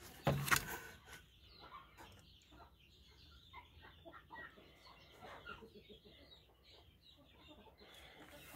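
Chickens clucking softly in a coop, a run of short faint calls. A loud knock and rustle just after the start is the loudest sound.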